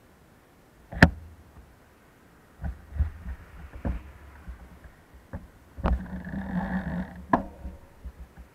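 A sharp knock, then a run of dull thumps and clicks, and a short rumbling stretch ending in another sharp click, over a very quiet background.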